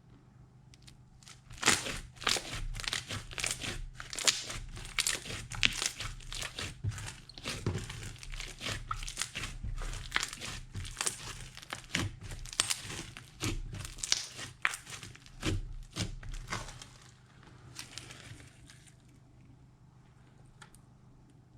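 Slime being worked by hand: a quick, uneven run of sticky pops and crackles that starts about two seconds in and dies away near the end.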